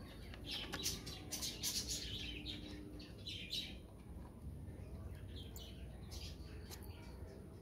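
Small birds chirping: a quick run of short high chirps in the first few seconds, then scattered single chirps.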